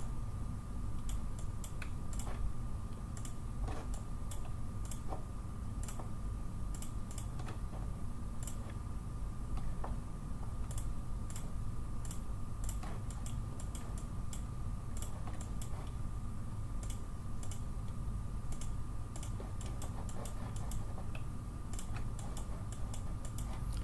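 Irregular clicking of a computer mouse, a few clicks a second with gaps, over a steady low electrical hum and a faint steady high tone.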